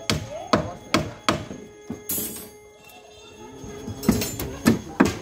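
Hammer blows on wooden concrete formwork, sharp knocks at a steady pace of about two a second, stopping for about two seconds midway and then going on.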